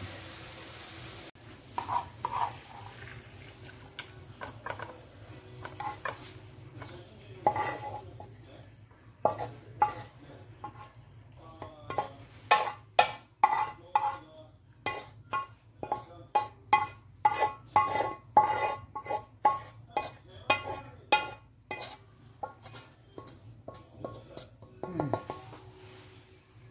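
Wooden spatula scraping and tapping against a frying pan as stir-fried bamboo shoots are scooped out onto a plate. It makes a quick series of sharp scrapes and knocks, about one to two a second, from roughly nine seconds in until near the end.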